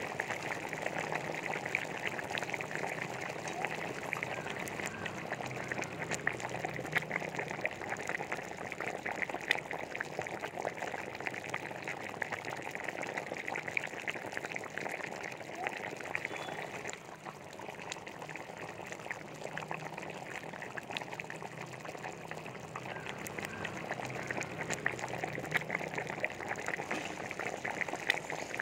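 Thick crab gravy simmering in a pan, bubbling and popping with a steady fine crackle.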